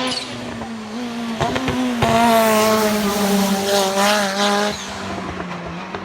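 Hillclimb race car engine at high revs as the car passes, the engine note wavering and stepping as the throttle is worked, loudest through the middle seconds. A few sharp pops come just before the loudest part.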